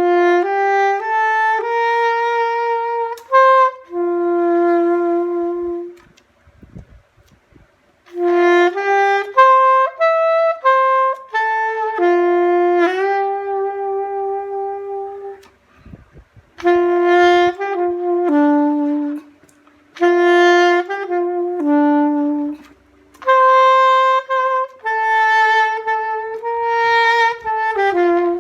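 Solo saxophone playing a Christmas melody unaccompanied and dry, without effects. It plays a single line of held notes in phrases of a few seconds, with short pauses between them.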